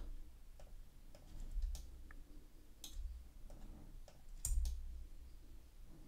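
Faint computer mouse clicks, several of them spaced irregularly, as faces are picked one at a time in CAD software.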